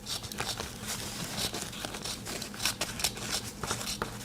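The small spring-loaded scissors of a Victorinox Swiss Army knife snipping through toilet paper: a run of quick, irregular snips mixed with the crinkle and rustle of the soft paper.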